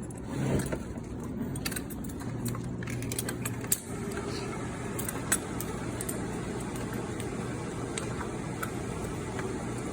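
Scattered metallic clinks and knocks of firefighting gear being handled, over a steady low hum.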